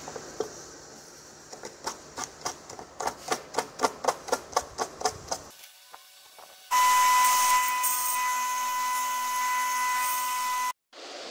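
A blade scrapes and whittles a small wooden lure body in quick strokes that speed up to about three a second. After a short break, a small power tool's motor runs steadily with a high whine for about four seconds, then cuts off suddenly.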